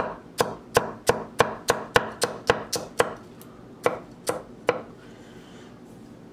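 Heavy chef's knife chopping celery on a wooden end-grain cutting board: a run of sharp chops about three a second, a short pause, three more chops, then it stops about five seconds in.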